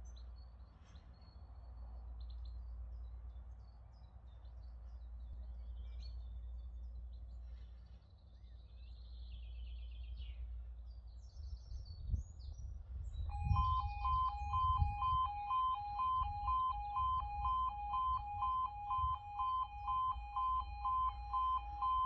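Birds chirping over a low rumble. About two-thirds of the way in, the crossing's E2S level crossing alarms start up: a loud, pulsing two-tone alarm at about two pulses a second, warning that the half barriers are about to lower for an approaching train.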